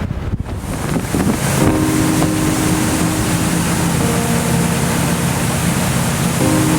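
Hardy 62 motor yacht running at cruising speed: a steady engine drone over rushing water and hiss. For about the first second and a half, wind buffeting on the microphone is the main sound.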